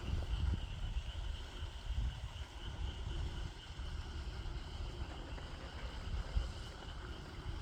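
Wind buffeting the microphone in an uneven low rumble, over a steady high-pitched chorus of insects.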